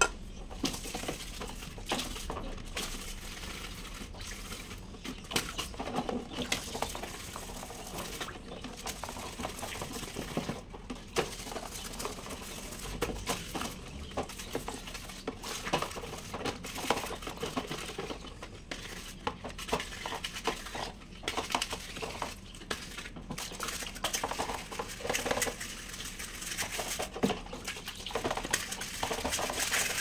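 A plastic Lasko fan blade being hand-washed in a plastic tub of water: irregular splashing, sloshing and rubbing, with light clicks and knocks of the plastic.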